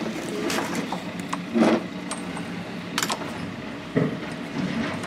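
Light clicks and short rustles of a lawnmower starter rope and its plastic handle being handled and fitted into the rope guide on the mower handle, with a steady low hum in the background.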